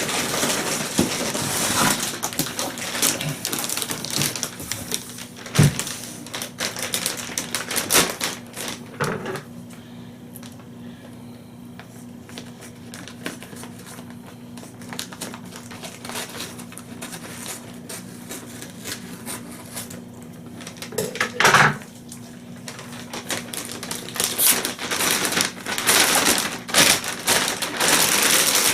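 A new receipt printer being unpacked from its cardboard box and packing material: rustling and scraping with many clicks and knocks, two louder knocks about 5 and 21 seconds in, and a quieter stretch in the middle.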